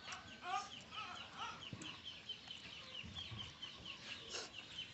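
Faint bird-like calls: a rapid high chirping repeats about four or five times a second, with a few short lower calls in the first second and a half.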